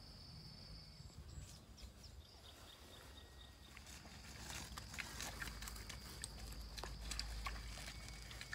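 A dog moving through leafy undergrowth, with light rustling and scattered clicks that grow busier in the second half. Under it runs a steady high insect drone.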